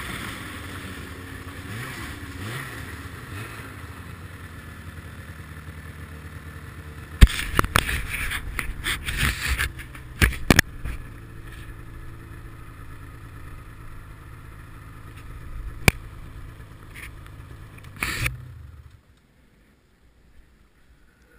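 Ski-Doo MXZ 700 snowmobile's two-stroke twin slowing down and idling, with a run of sharp knocks and scrapes partway through; after a short burst it is switched off and falls silent near the end.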